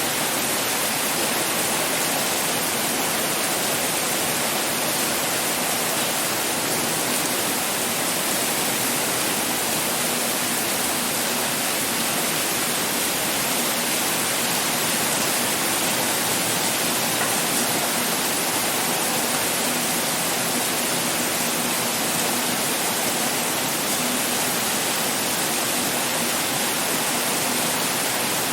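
Heavy pouring rain, a dense, even hiss with no individual drops standing out.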